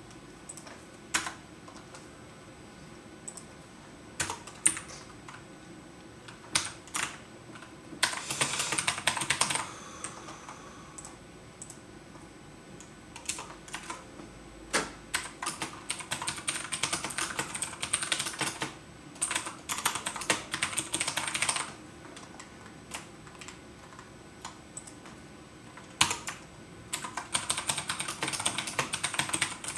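Typing on a computer keyboard: scattered single keystrokes, then several quick bursts of rapid key presses a few seconds long, with pauses between them.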